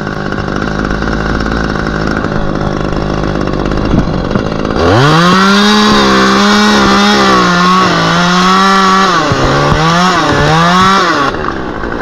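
Top-handle chainsaw revved to full throttle about five seconds in and cutting through a willow trunk, its pitch sagging and recovering as the chain bites, then dropping back near the end. Before the cut there is only a steady, lower engine hum.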